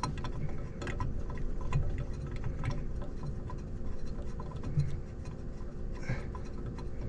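Light, irregular metallic clicks and ticks as a bolt for the Honda's VVT solenoid is worked into its hole by hand, blind, in a cramped engine bay.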